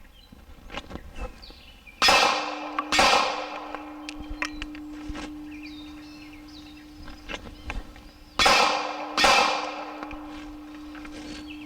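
Two double taps from a .380 Glock 42 pistol at a steel target, about six seconds apart, each pair two sharp shots a little under a second apart. A steady low ring hangs on after the first pair and carries through the rest, typical of a hanging steel plate that has been hit.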